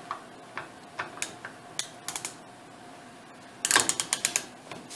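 Torque wrench ratchet clicking: a few scattered light clicks and taps of metal tools being handled, then a quick run of about ten sharp ratchet clicks near the end as the handle is swung back.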